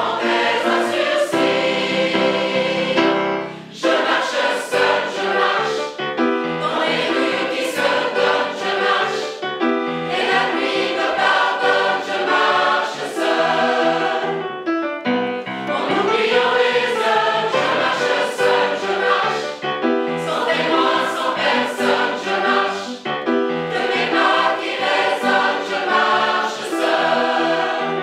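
Large mixed choir of men's and women's voices singing a song together, in sustained phrases with brief breaks about four and fifteen seconds in.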